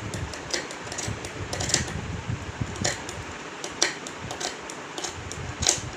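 Tailoring scissors cutting through cloth along a pinned paper pattern: a string of irregular crisp snips as the blades close, about one every second.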